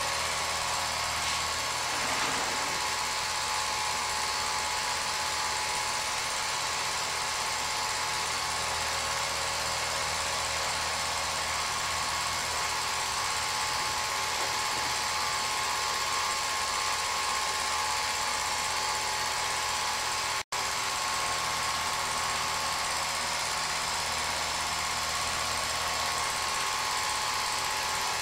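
Film projector running steadily: an even motor whir and hiss with a fixed high hum, broken by a split-second dropout about two-thirds of the way through.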